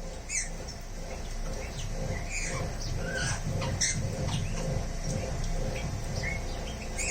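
Many kept birds chirping and squawking at once, in short, overlapping high calls, over a steady low hum.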